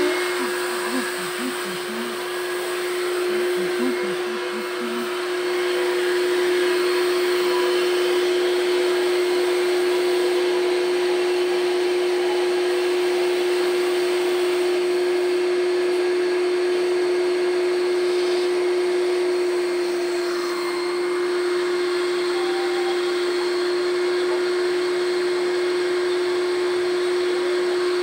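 An electric motor of the air-conditioner servicing equipment running steadily, one high hum over a hissing rush.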